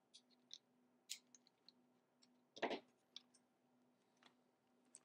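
Faint handling noise: scattered small clicks and one brief rub about two and a half seconds in, as hands work a slingshot frame, its latex bands and plastic clips, over a faint low hum.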